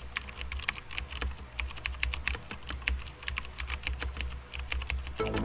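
Keyboard typing sound: rapid, irregular key clicks over a low steady hum, as the intro's title text is typed out on screen. Music comes in just before the end.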